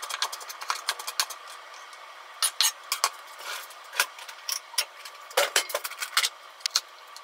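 Kitchen knife chopping diced carrot on a wooden cutting board in quick, even strokes, stopping a little over a second in. Then scattered knocks and clicks as the knife is set down, a drawer is opened and a plastic case is handled.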